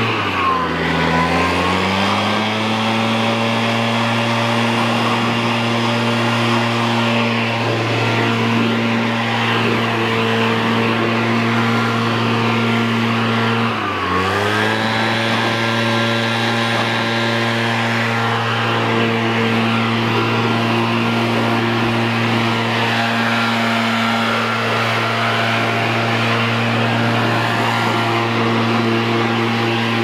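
Stihl BR700 backpack leaf blower's two-stroke engine running at full throttle, a steady high drone. The revs drop briefly as the throttle is eased off, shortly after the start and again about 14 seconds in, and climb straight back to full speed.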